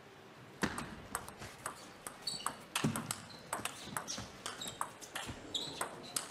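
Table tennis rally: the plastic ball clicking off the rackets and the table in quick, irregular succession, starting about half a second in, with a few short squeaks among the hits.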